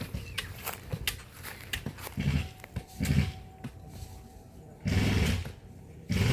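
Scattered sharp clicks and knocks, then a few short low thuds, from workers digging with hand picks.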